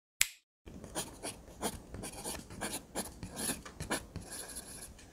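A sharp click, then irregular scratching and rubbing strokes, like writing on paper.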